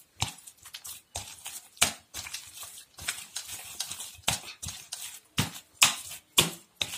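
Hand kneading soft maida dough in a stainless steel bowl: irregular short knocks and squishes, one or two a second, as the dough is pressed and pushed against the metal bowl.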